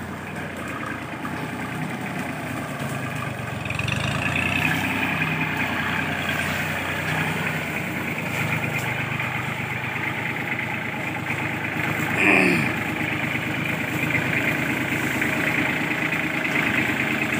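Farm tractor engine running steadily, louder from about four seconds in. About twelve seconds in, a brief whine falls sharply in pitch.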